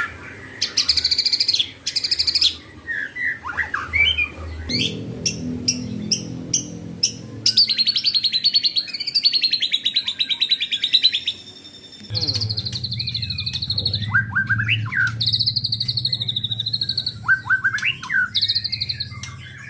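White-rumped shama (murai batu) songbirds singing: fast rattling trills alternate with short sliding whistled notes and sharp clicks. A low steady hum runs underneath from about five seconds in.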